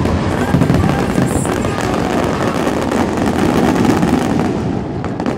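Fireworks display: many shells bursting together in a continuous barrage of rapid bangs and crackling.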